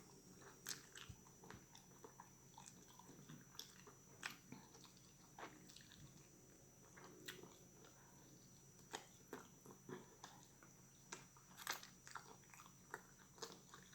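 Faint close-up eating sounds from someone eating a barbecued turkey leg: chewing and wet lip-smacking, heard as a string of short, irregular clicks and smacks.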